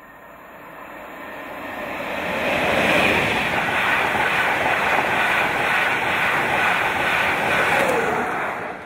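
A passenger train passing through a station at speed: the running noise of wheels on rails builds over the first few seconds, holds steady, then falls away sharply as the last coach clears near the end.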